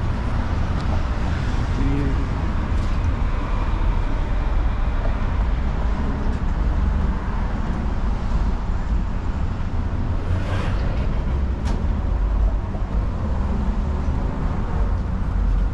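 Busy city-street ambience: a steady low rumble of road traffic with cars going by and faint snatches of passers-by talking. A short hiss comes about ten seconds in.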